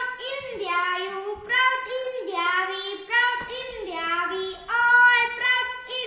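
A child singing a song, the voice alone with no instruments heard.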